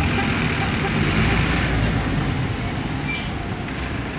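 City bus engine running as the bus pulls slowly past, over a steady haze of street traffic, with two short hisses near the end.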